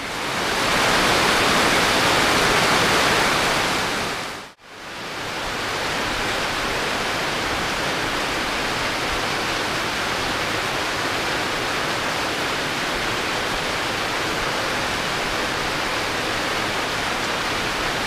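Heavy tropical rain pouring down, a steady hiss, with water streaming off the edge of a roof. The sound cuts out for a moment about four and a half seconds in, then goes on a little quieter.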